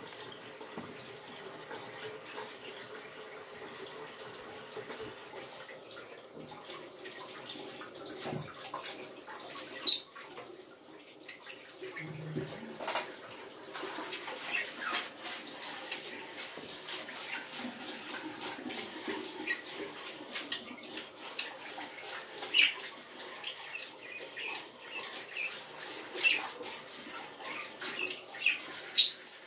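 Tap water running into a kitchen sink while things are washed by hand, with a few sharp clinks and knocks.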